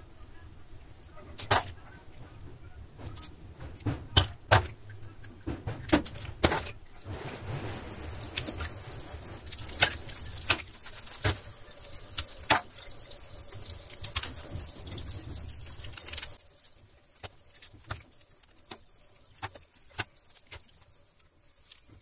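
Objects being handled and set down: a run of sharp clicks and knocks over a steady low hum and hiss. The hum and hiss stop suddenly about sixteen seconds in, and only a few scattered clicks follow.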